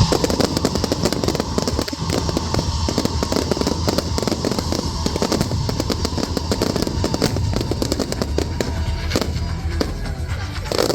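Fireworks crackling densely, many rapid pops a second, thinning a little near the end.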